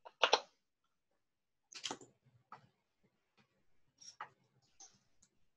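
Quiet room tone broken by a few brief soft noises, the loudest about a third of a second in and fainter ones around two and four seconds in.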